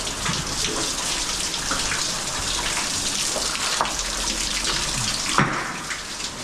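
Cave waterfall pouring and splashing steadily, with a brief sharp knock about five and a half seconds in.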